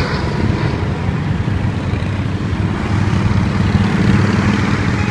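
Motorcycles and highway traffic passing below, a steady low engine rumble that grows louder about three seconds in as motorcycles come closer.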